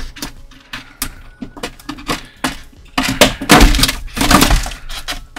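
Stiff clear plastic packaging crackling and snapping as an action figure is handled and worked free of it. The crackling is a run of sharp clicks, denser and louder from about three seconds in, with a few dull knocks.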